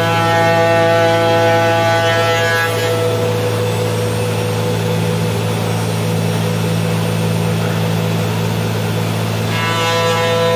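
CNC wood router running, with a steady low machine hum throughout. A high spindle whine gives way to a rougher, noisier sound from about three seconds in until near the end, when the whine returns.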